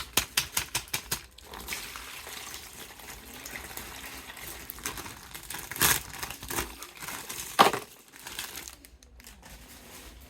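Plastic toy packaging crinkling and tearing as an action figure is unwrapped. There is a quick run of clicks at the start and a couple of sharp snaps a little past the middle.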